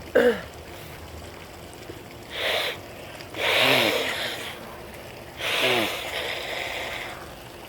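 A person sneezing in the shower: a short sneeze at the start, then a sharp noisy breath and two longer sneezes, each with a falling voice. Running shower water hisses underneath.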